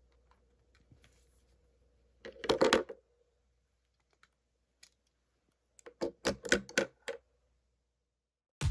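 Two short bursts of quick, sharp clicks and taps, like typing or tapping on a hard surface, with music starting abruptly at the very end.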